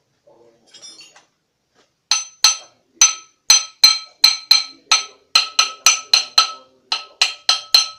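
A metal tool strikes the flywheel of a Perodua Kancil 850 engine during fitting, about eighteen sharp ringing knocks at roughly three a second, starting about two seconds in. Each knock rings with the same clear metallic tones.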